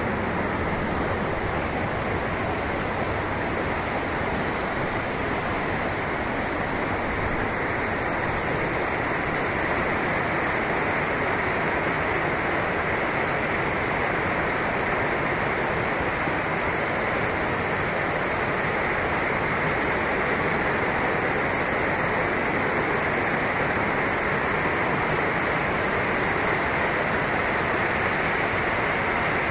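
Rain-swollen river in flood rushing and churning over rocks as whitewater, a steady, unbroken rushing noise.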